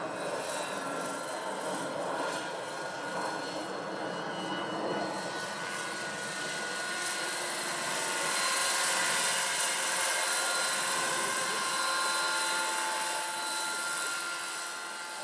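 Electric RC scale model helicopter (a 700-size Lockheed XH-51) in flight: a steady motor-and-rotor whine with whooshing blade noise, getting louder about halfway through as it passes closer, then easing off.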